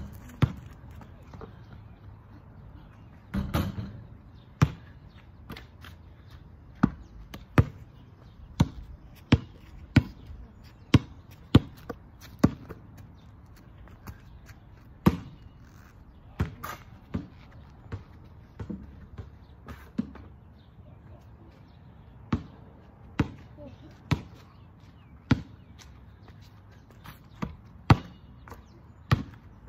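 Ball bouncing on a paved driveway, with sharp separate thuds, in places a steady run of bounces under a second apart like dribbling, elsewhere single bounces a few seconds apart.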